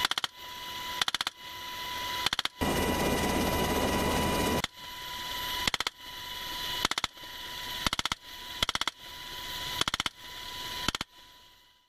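Gunfire from a helicopter's open door: about nine short, fast bursts of three or four shots each, roughly a second apart, over the steady whine and rush of the helicopter. About two and a half seconds in, a louder rush of rotor and wind noise takes over for about two seconds.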